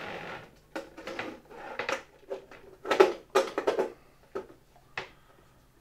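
Handling noises as a windscreen wiper wheelbox is slid onto the rack cable and fitted to the end of its tube: a string of small metal clicks, taps and scrapes against the metal panel, loudest about three seconds in.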